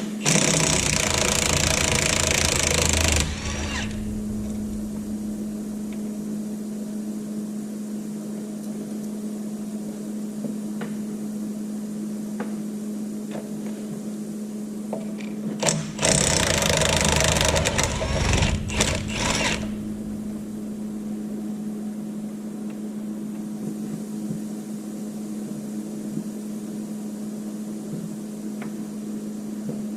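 Impact wrench hammering bolts out of a Caterpillar D4's track frame in two runs of about three seconds each, one at the start and one a little past halfway, over a steady low hum.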